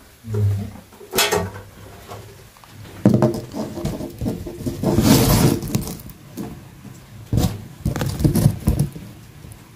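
Handling noise from hands-on electrical work at a spa heater: a dull thump near the start, a click about a second in, then a few seconds of scraping and rattling and several more knocks near the end, as the wires and a pipe are moved against the heater's wiring box.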